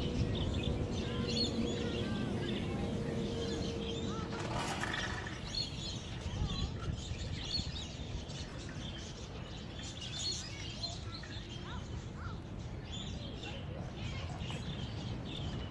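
Many small birds chirping and calling over a steady low background rumble.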